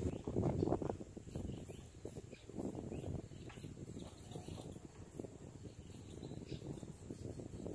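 Quiet outdoor ambience: faint, high-pitched insect chirps repeating over a faint, uneven low rumble that is strongest in the first second.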